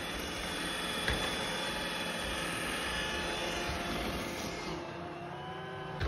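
iRobot Roomba i3 robot vacuum running as it drives across a wooden floor: a steady whir from its suction fan and brushes, with a short click about a second in.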